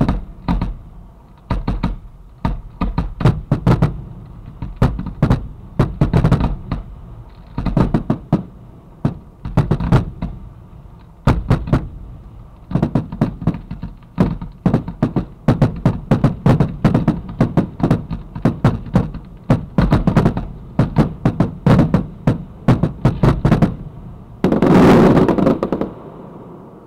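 A dense barrage of fireworks fired at close range from mortar tubes: dozens of sharp bangs from shells launching and bursting in rapid succession. Near the end comes a louder, longer rushing burst, and then the firing stops.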